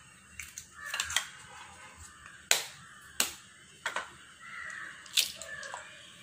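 Raw eggs being cracked against a stainless steel bowl: a series of sharp taps of shell on metal, the loudest about two and a half, three and five seconds in.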